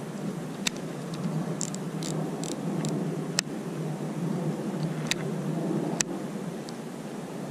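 Wind buffeting the microphone with a steady rumble, while hands working a baitcasting reel and fishing line make several sharp clicks and small ticks.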